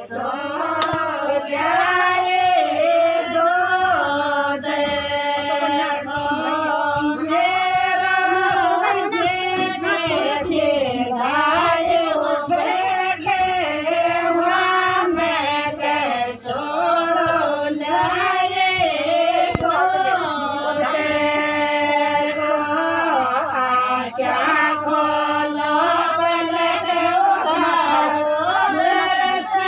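Group of women singing a Shekhawati folk song together in unison, in long phrases of held and sliding notes.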